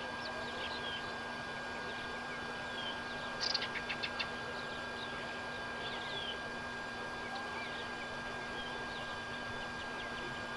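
Birds chirping: scattered short, high peeps throughout, with a quick run of about six sharp notes around three and a half seconds in, over a steady hiss and a faint hum.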